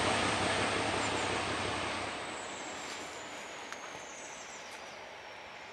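Diesel-electric locomotive T478.2065, a Czech T478.2 'Bardotka' with a ČKD six-cylinder engine, and its train going away: the low engine rumble dies out about two seconds in while the rolling noise fades steadily, with a thin high tone slowly falling in pitch.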